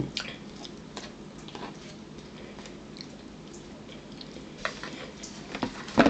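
Sounds of eating at a table: scattered small clicks and taps of a metal spoon in a plastic bowl, with a few louder taps near the end.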